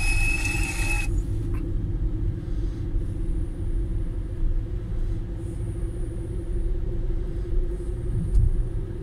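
Car driving slowly, heard from inside the cabin: a steady low rumble of engine and road noise with a faint constant hum.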